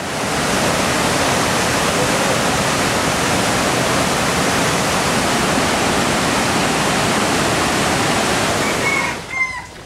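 Rushing water of a waterfall and fast-flowing river, a loud, steady noise that drops off suddenly near the end.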